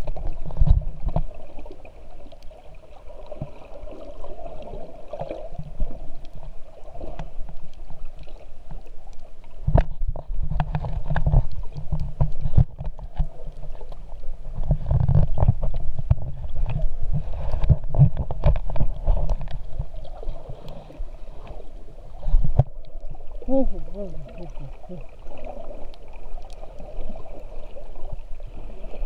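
Muffled water noise from an underwater camera moving through the sea: irregular low sloshing and gurgling surges with scattered clicks, over a steady hum.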